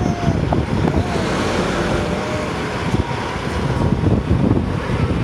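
Wind buffeting the microphone over a low, steady rumble.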